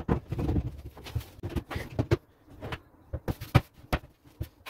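Wood-effect vanity drawer being fitted onto its metal runners and pushed shut: a short low sliding rumble, then a series of sharp knocks and clicks, the loudest about three and a half seconds in.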